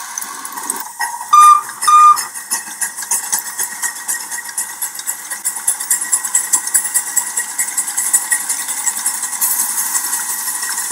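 Steam locomotive whistle giving two short toots, followed by steady rhythmic exhaust chuffing of about four beats a second as the train runs.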